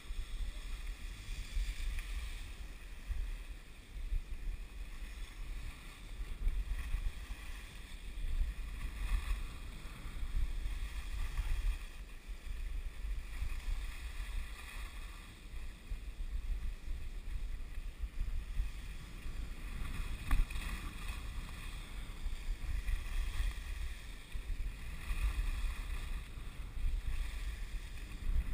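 Wind rumbling on the microphone of a skier's action camera, with the hiss of skis sliding and scraping over the snow, swelling and easing with the turns. One sharp knock partway through.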